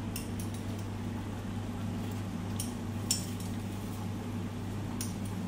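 Pot of water at the boil on an electric cooktop, with a steady low hum and a faint even bubbling. A few faint light clicks of a spoon come as salt is added.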